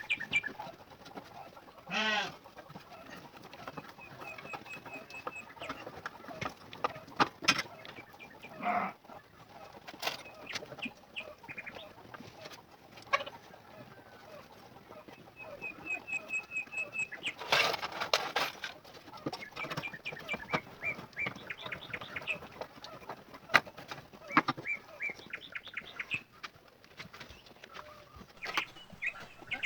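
Birds chirping and chickens clucking, with scattered short clicks and knocks.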